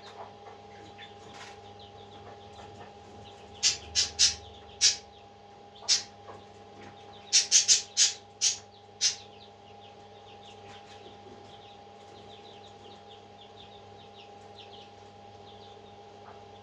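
Baby parrot chicks peeping softly, with a cluster of loud, short, shrill calls about four to nine seconds in, over a steady low hum.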